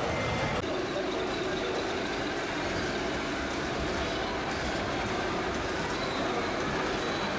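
Steady engine rumble from the sound modules of 1:14 RC model trucks, mixed with the general noise of a busy exhibition hall.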